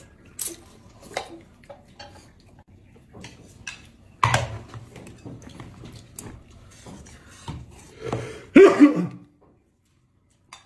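Bowls and plates clattering and chopsticks clicking as dishes of noodles are picked up and gathered from the table, with a louder clatter about four seconds in. Near the end comes a short vocal sound, and then the sound stops abruptly.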